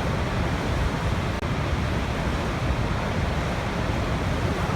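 Waterfall: a steady, full rushing of falling water, heaviest in the low end, with one very brief dip about a second and a half in.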